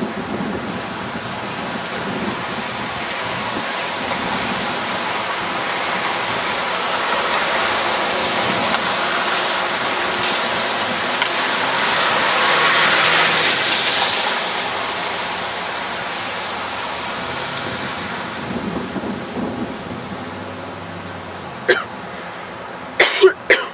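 Street traffic with a steady hiss of tyres on wet pavement, swelling as a group of cars drives past about halfway through and then fading. A few sharp knocks or clicks come near the end.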